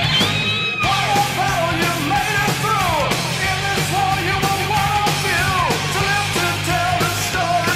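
A 1980s heavy metal recording: the full band plays, with drum hits and a steady low bass under a high lead line that bends and slides down in pitch several times.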